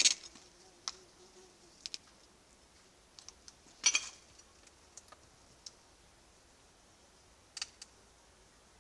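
Scattered sharp clicks and crackles over a quiet background, irregular, with the loudest cluster about four seconds in.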